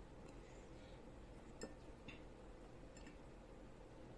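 Near silence, with a few faint, short clicks and taps while slime is being mixed.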